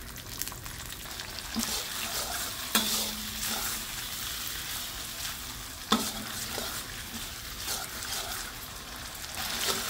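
Ground chilli paste with shallots, garlic and shrimp paste sizzling in oil in a stainless-steel wok while a metal spatula stirs and scrapes it, with a few sharp clinks of spatula on wok, the loudest about three and six seconds in. The paste is being fried until the oil separates from it.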